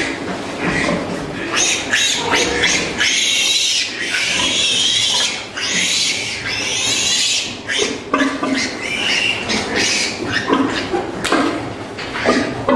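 A litter of piglets squealing and squeaking, some calls long and high, with lower pig grunts among them.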